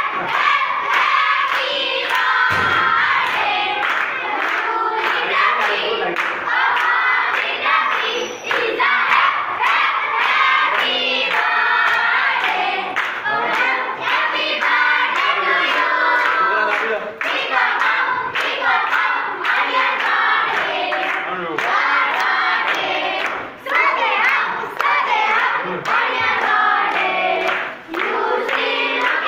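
A group of children singing together in chorus, with hands clapping along in a steady beat.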